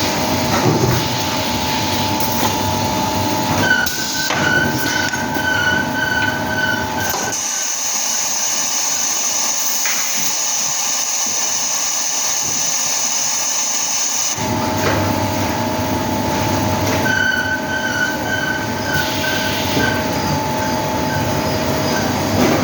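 Plastic moulding machine for balls and piggy banks running, a loud steady mechanical drone with several whining tones and an intermittent high squeal. From about seven seconds in, the drone drops away for about seven seconds and a steady high hiss takes over, then the drone and whine return.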